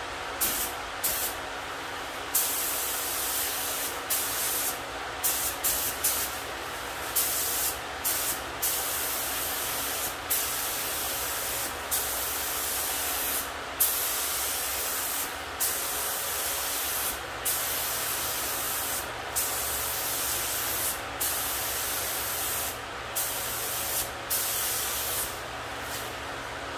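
HVLP spray gun hissing as it sprays epoxy primer, in a long run of passes of one to two seconds each, the trigger released briefly between them. A faint steady hum runs underneath.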